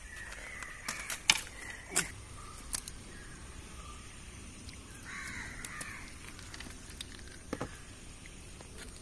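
Crows cawing, with a burst of caws about five seconds in, over a few sharp clicks and taps, the loudest in the first two seconds.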